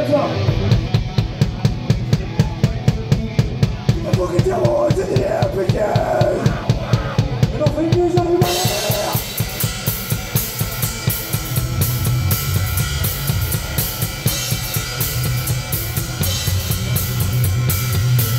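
A live band heard up close from the drum kit: steady kick-drum hits at about four a second, with the band's pitched parts bending over them. About eight seconds in, the cymbals crash in and the full kit drives on with the rest of the band.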